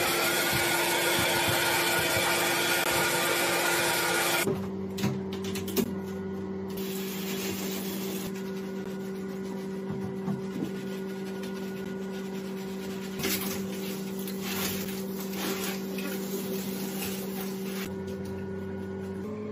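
An electric pet dryer or blower rushing loudly for the first four or so seconds, then cutting off. A quieter wash-time stretch follows, with a hiss like a running shower and a few knocks and splashes. A steady low hum runs under it all.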